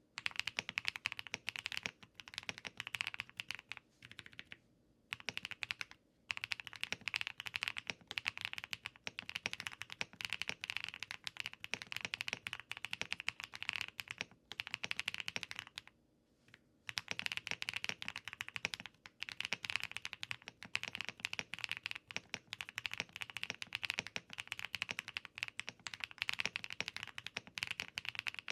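Steady typing on a Mode Sonnet mechanical keyboard with HMX Bleed light tactile switches, foams in: a dense run of clacky keystrokes, broken by brief pauses about five, six and sixteen seconds in.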